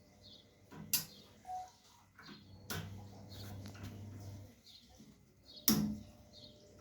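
A few sharp clicks and knocks of tools and parts being handled while a new filter drier is fitted to the freezer's pipework, the loudest about two thirds of the way through. Faint high chirps repeat about once a second behind them.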